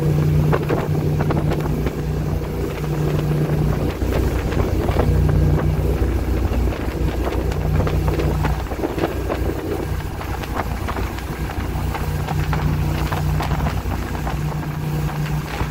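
A powerboat's engines run at speed with a steady low drone, mixed with the rush of the wake and wind buffeting the microphone.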